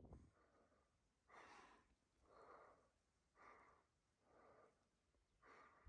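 Faint, regular panting of a climber breathing hard from the steep ascent, about one breath a second, inhales and exhales alternating.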